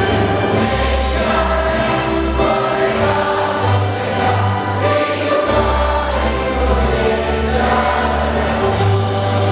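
A choir singing with instrumental accompaniment, a steady bass line moving underneath.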